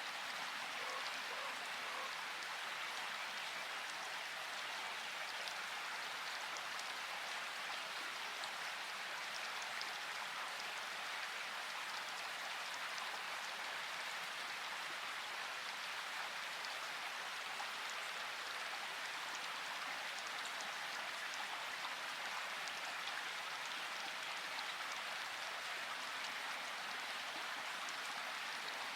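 Steady rain falling, an even hiss of many drops that keeps up without let-up.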